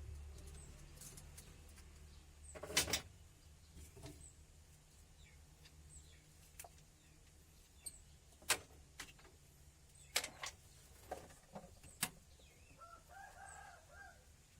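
Scattered sharp knocks and clinks, about seven over the stretch, the loudest about three seconds in, typical of hand tools working on a steering gearbox. A chicken clucks briefly near the end.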